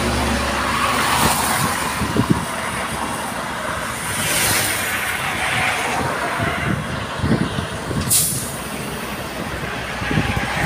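Heavy diesel trucks passing close by on a highway, their engine rumble and tyre noise swelling and fading as each goes by. About eight seconds in there is one short, sharp hiss.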